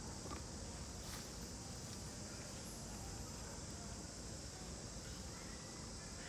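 Steady outdoor background: a high, even insect drone over a low rumble, with a few faint clicks.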